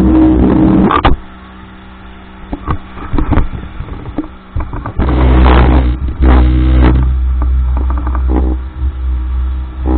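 Speedboat engine running at speed, with wind and rushing water on the microphone. The loud drone drops away suddenly about a second in, a few knocks follow, and it comes back loud about halfway through.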